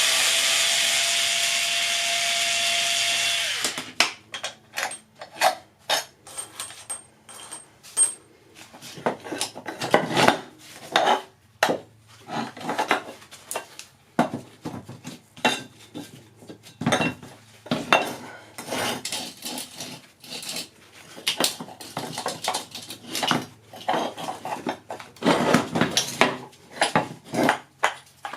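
A power tool runs steadily for the first three and a half seconds, then stops abruptly. After that come irregular metallic clanks and knocks, like metal parts being handled and struck.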